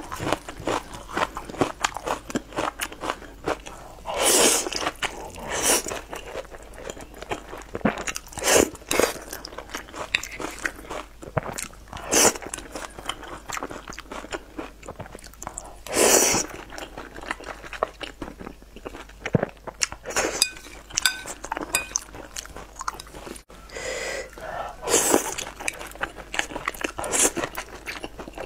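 Close-up eating sounds: wet chewing and mouth smacks on soft, saucy wide flat noodles and eggplant, with a louder sucking sound every few seconds as a mouthful of noodles is drawn in.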